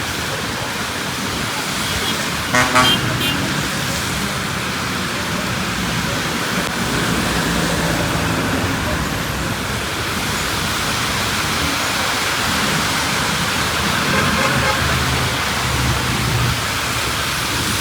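Road traffic in the rain: a steady hiss of rain and wet tyres with vehicle engines running, and a brief vehicle horn toot about three seconds in.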